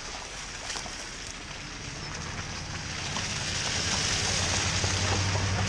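White Ford pickup truck driving up a wet, muddy dirt road: a steady engine hum with tyres hissing on the wet surface, growing louder from about halfway and loudest near the end.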